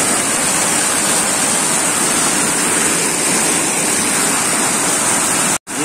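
Heavy rain pouring down onto a wet street: a steady, dense hiss, broken by a split-second dropout near the end.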